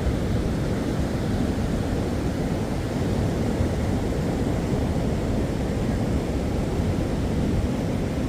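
Ocean surf heard as a steady, low-pitched noise, even in level with no single wave breaking out from it.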